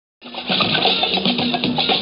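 Music with percussion and a bass line, starting a fraction of a second in, played for a breakdance routine.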